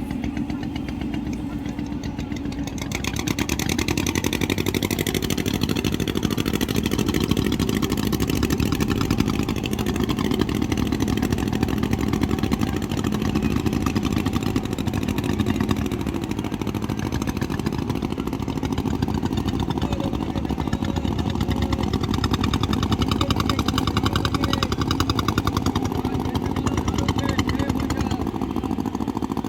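Local ferry boat's engine running steadily, growing louder about three seconds in.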